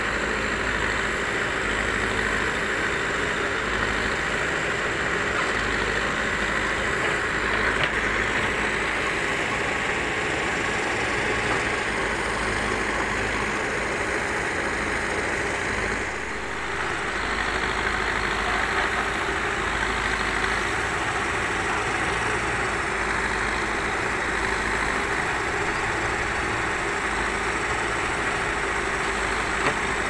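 Terex TLB 740S backhoe loader's diesel engine running steadily while the backhoe digs.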